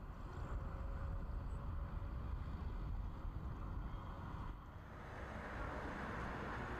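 Steady rumbling wind noise on the microphone over an open hillside. About five seconds in the sound shifts to a brighter, steadier hiss of cars passing on a road.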